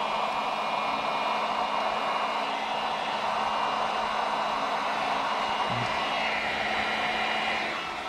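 Electric heat gun set to 550 blowing steadily, heating vinyl wrap film so it softens and conforms to the pistol slide. The airflow noise is steady with a faint motor hum and eases slightly near the end.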